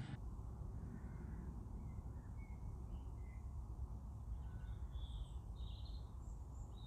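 Faint small birds chirping, with short calls scattered throughout over a steady low background rumble.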